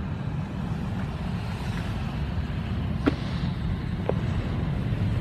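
Steady low outdoor rumble, with a couple of faint clicks a little past the middle.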